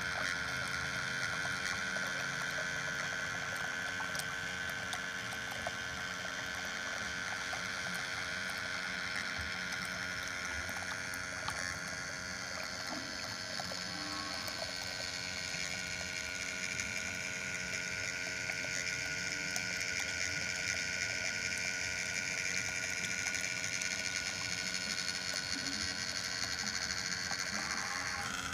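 A small motor running steadily with no change in speed.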